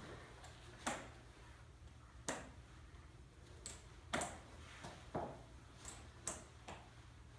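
Metal forearm crutches tapping on a hard wooden floor along with footsteps, a person walking on crutches: about eight sharp knocks at uneven intervals of roughly half a second to a second and a half.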